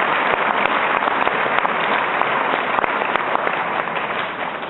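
Audience applauding: many hands clapping, fading slowly toward the end.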